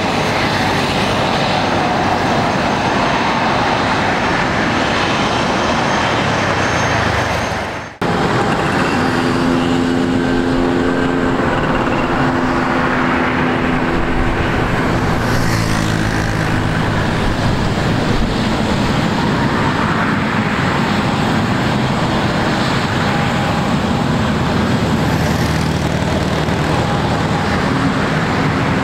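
Turbofan engines of a three-engined Dassault Falcon business jet running at idle while it taxis, a steady even jet noise. It cuts off abruptly about eight seconds in and returns at once, with a low steady hum added for a few seconds after.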